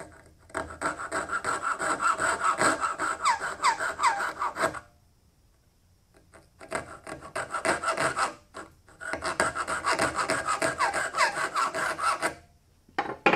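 Coping saw cutting a small walnut seat blank by hand, in three runs of quick back-and-forth strokes with short pauses between them and a faint squeal of the blade now and then.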